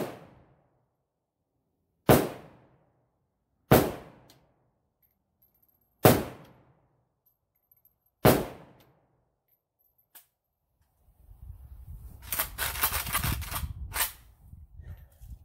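AK-47 underfolder rifle with a Huber Concepts muzzle brake firing four single shots about two seconds apart, each a sharp crack with a short echo. A faint click follows, then rustling, handling noise and a sharp clack near the end as the rifle is lowered.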